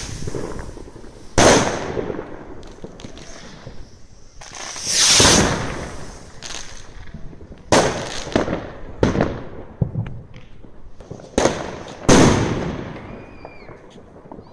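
Aerial fireworks going off: a string of sharp bangs, irregularly spaced. Two of them, about five and twelve seconds in, swell into longer rushing bursts that fade away.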